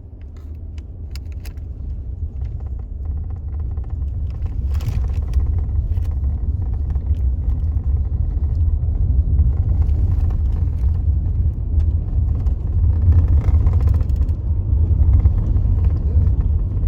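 Car driving, a steady low road-and-engine rumble that builds up over the first few seconds, with a few light clicks and rattles.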